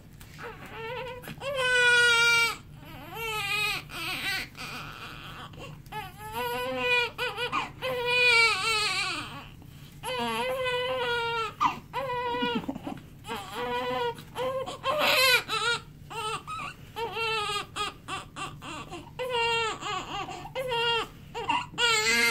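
Newborn baby crying: a string of wailing cries, each wavering in pitch and broken by short gasps for breath, starting about half a second in. An angry cry.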